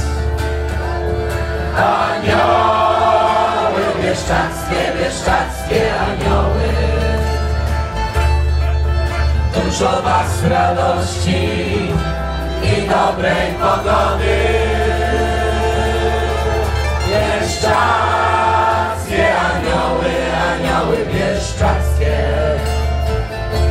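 Live acoustic folk band playing, with guitars and fiddle over a steady bass, while a group of voices sings.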